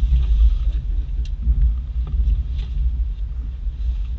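Off-road vehicle's engine and drivetrain running in a steady low rumble, heard through the cab while it pushes through deep snow, with a few faint knocks.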